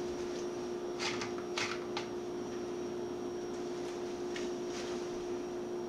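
Wire whisk stirring flour into pancake batter in a glass Pyrex measuring bowl, with scattered clicks and scrapes of the wires against the glass, over a steady hum.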